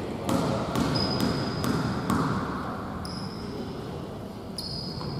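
A basketball bouncing on a hardwood gym floor, several irregular thuds, with a few short high squeaks from sneakers on the court, the longest near the end.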